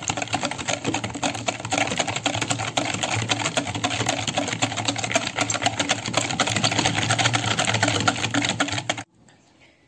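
Wire balloon whisk beating eggs, sugar and oil in a bowl by hand, its wires clicking rapidly against the bowl's sides in a fast, steady rhythm. The clicking stops suddenly about nine seconds in.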